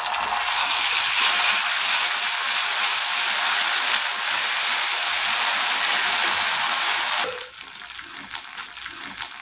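Ginger-garlic paste frying in hot oil with chopped onions in a kadhai, a dense, steady sizzle as it is stirred with a wooden spatula. About seven seconds in the sizzle drops sharply to a quieter hiss.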